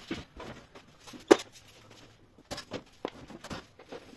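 Scattered knocks and clicks of hand tools and sheet-metal panels while a tumble dryer's casing is taken apart, with one sharp knock about a second in the loudest.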